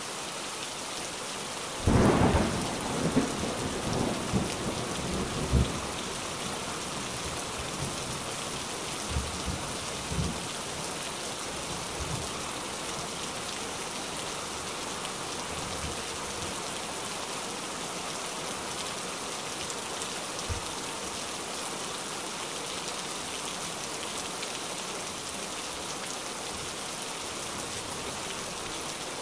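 Heavy rain falling steadily. About two seconds in, a loud clap of thunder rolls on for several seconds, and a few fainter rumbles follow later.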